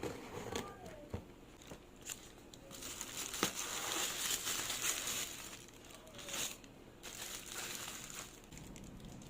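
Phone-box packaging being handled and unwrapped: crinkling and rustling with a few sharp clicks, loudest in the middle.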